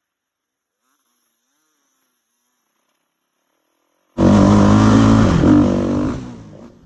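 A loud engine drone that starts suddenly about four seconds in, holds for about two seconds with a slight dip in pitch, then fades out.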